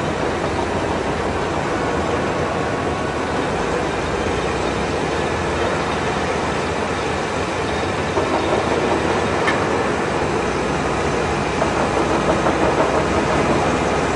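Grindex Matador-H submersible drainage pump running while pumping water out of a muddy pit: a steady mechanical noise that grows a little louder and more uneven from about eight seconds in.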